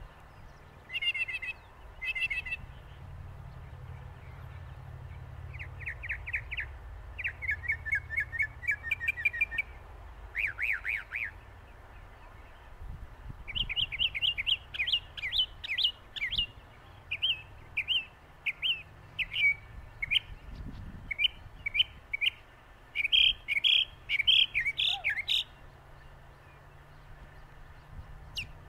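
Northern mockingbird singing: a string of varied phrases, each a quick run of repeated notes, with short pauses between them and a livelier stretch in the second half, then falling silent a few seconds before the end. A low steady rumble lies underneath.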